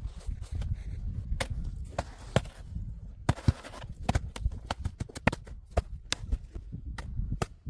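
Irregular sharp knocks and crunches of hard snow being cut and worked, over a steady low rumble.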